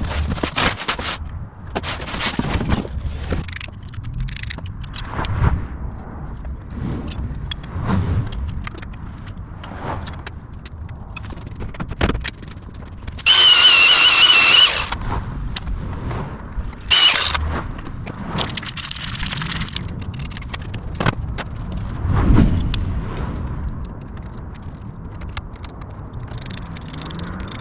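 Hands-on workshop sounds from fitting parts to a motorcycle: metal tools and hardware clicking, clinking and scraping. About 13 seconds in there is a loud burst of noise with a wavering high whine, lasting about a second and a half, and a shorter burst near 17 seconds.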